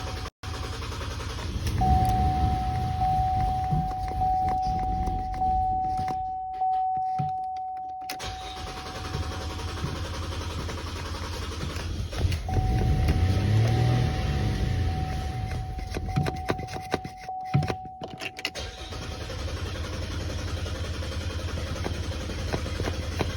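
GMC Acadia being cranked by its starter in two attempts, each with a steady electronic warning tone sounding over the cranking. The car has been refusing to start.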